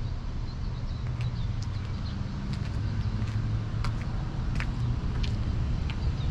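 Steady low rumble of vehicle engines, with scattered light clicks.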